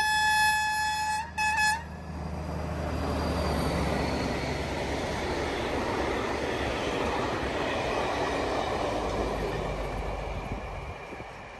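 A train horn gives one long blast and then two short toots. Then a Schweerbau track-construction train rolls past with steady wheel-on-rail noise, which dies away near the end.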